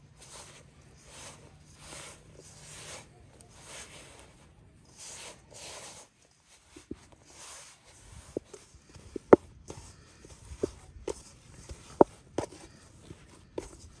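Hands mixing and kneading lavash dough in a stainless steel bowl: a soft squishing and rubbing that repeats in a steady rhythm, giving way about halfway to sharp, irregular knocks as the gathering dough and hand bump against the metal bowl.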